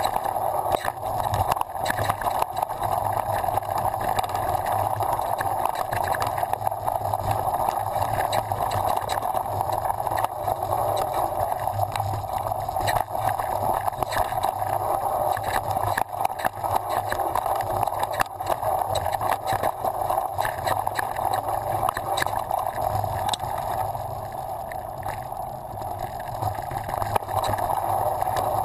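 Downhill mountain bike descending a rough dirt trail, heard from a rider-mounted camera: a steady rush of wind and tyre noise with frequent clicks and rattles from the bike over bumps. The rush eases briefly about four-fifths of the way through.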